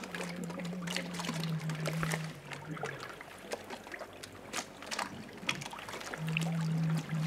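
Seawater lapping and trickling against a wooden boat's hull, with many small splashes and drips. A low steady hum runs under it for the first few seconds, stops, and comes back near the end.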